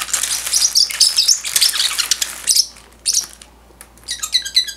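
Pacific parrotlet chirping while a thin plastic bag crinkles for the first two and a half seconds; after a short pause, about four seconds in, the bird breaks into a fast run of repeated high chirps.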